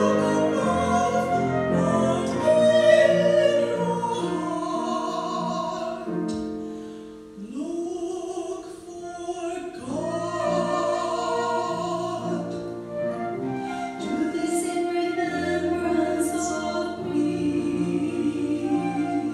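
Two women singing a duet in a classical style, with held notes and vibrato, accompanied by piano and flute.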